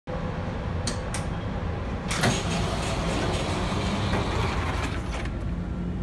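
Amtrak passenger train standing at the platform, its diesel engine running with a steady low hum. There are a few sharp clicks near the start and a knock about two seconds in.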